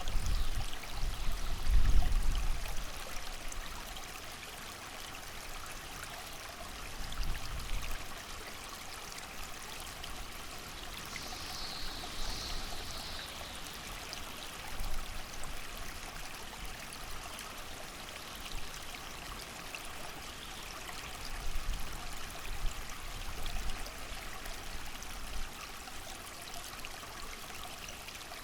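A creek flowing steadily with rain, as a continuous even rush of water. Low gusts of wind swell in several times, the strongest about two seconds in.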